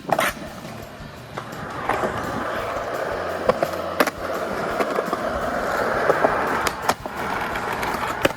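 Skateboard wheels rolling, a steady rolling noise that starts about two seconds in and runs until just before the end, with several sharp clacks of the board hitting the ground along the way.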